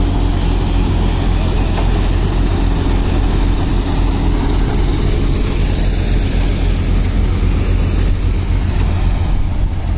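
Multicrop thresher running steadily while threshing wet mustard: a continuous low hum under a dense rush of noise.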